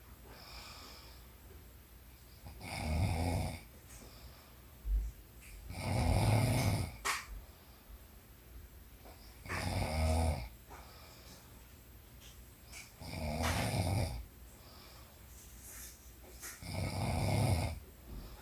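A woman snoring in her sleep: five snores, each about a second long, coming at a steady pace of roughly one every three and a half seconds.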